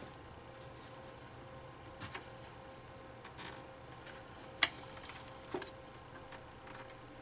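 Light handling noise from work inside a desktop PC case: a few scattered soft clicks and taps, the sharpest about four and a half seconds in, over a faint steady hum.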